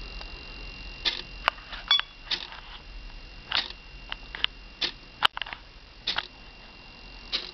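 Aileron servos in an RC P-51 Mustang model twitching, giving irregular short clicks and buzzes over a steady high whine. The twitching is the sign of radio interference from the xenon strobe navigation light mounted next to the servos without shielding.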